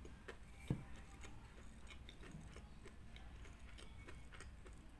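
Faint close-miked chewing of kimbap (rice rolled in seaweed): soft, irregular mouth clicks, with one low thump a little under a second in.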